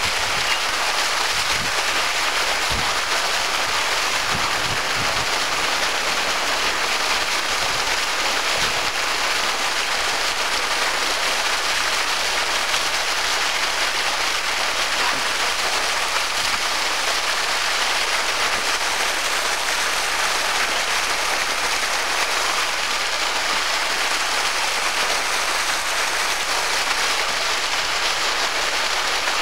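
Open fire hydrant gushing, its jet of water spraying and splashing onto the street pavement in a steady rush.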